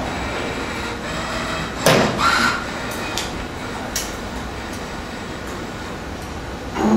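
Wire spring forming machine running: a steady mechanical clatter with sharp metallic strikes, the loudest about two seconds in, and a loud hum that starts near the end.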